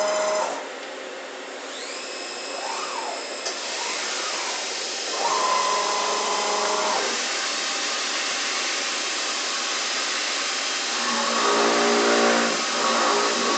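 Torq-Cut 22 CNC vertical mill running a drilling cycle on a steel bracket: motor whines that rise and fall over a steady hiss. About eleven seconds in, a denser, steady hum of several tones sets in as the spindle drills into the plate.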